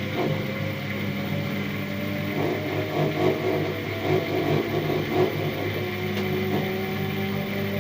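LG F1296WDS washing machine running, its motor whine slowly rising in pitch as the drum speeds up, with an uneven vibrating rattle that has a few sharper knocks. The vibration comes from the right side panel, which the owner says sounds as if it is poorly fastened, even though the machine is levelled and it happens with an empty drum.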